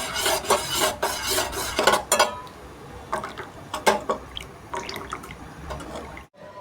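Metal spoon stirring and clinking in a steel vessel of liquid herbal decoction, with some sloshing: a busy run of scrapes and clinks for about two seconds, then only occasional clinks. The sound cuts off abruptly just before the end.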